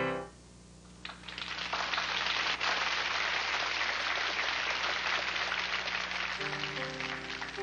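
Studio audience applauding at the end of a sketch, a dense crackle of clapping that starts about a second in and holds, thinning a little near the end. Music comes in under the clapping about six seconds in.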